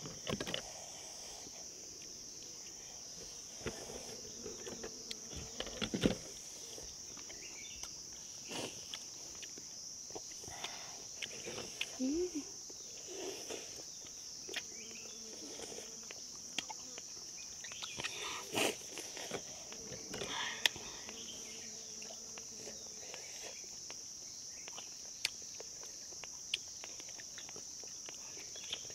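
A steady, high-pitched chorus of insects, with scattered small clicks and knocks over it; the loudest knock comes about six seconds in.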